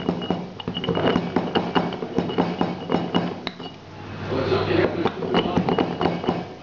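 Stone pestle pounding whole black peppercorns in a brass mortar: quick, even metallic clinking strikes about four to five a second, with a short break a little before the middle.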